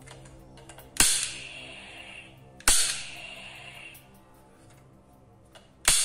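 Toy pistol firing three shots, one about a second in, another under two seconds later and a third near the end, each a sharp crack with a ringing tail that fades over about a second. Background music runs underneath.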